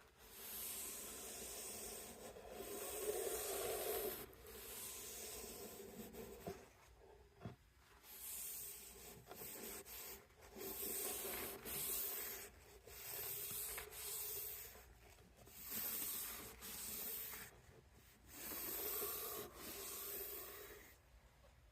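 Wooden mallet handle being rubbed clean by hand, a dry scraping sound. First a long run of near-continuous strokes, then from about eight seconds in separate strokes of about a second each, one roughly every two seconds.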